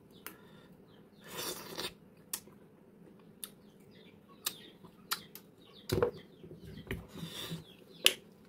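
Hands peeling and handling Burmese grape fruit: scattered soft clicks and two brief rustles, the second as the bunch of fruit is lifted, over a faint steady hum.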